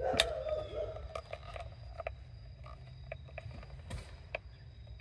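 Light, scattered clicks and knocks of plastic parts as a Honda Odyssey fuel pump module is handled and its pieces are pushed back together. The sharpest click comes just after the start, another about four seconds in, all over a steady low hum.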